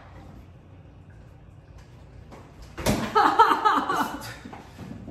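A refrigerator door shuts with a single sharp knock about three seconds in. About a second and a half of louder, uneven sound follows.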